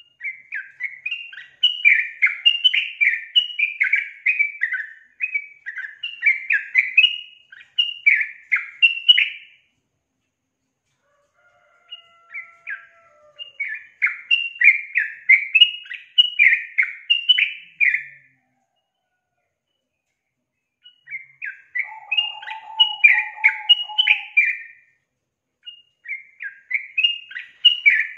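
Female yellow-vented bulbul (trucukan) singing: quick, bubbly chattering phrases, four bursts of several seconds each with short pauses between. This is the female song used as a lure to set male bulbuls singing.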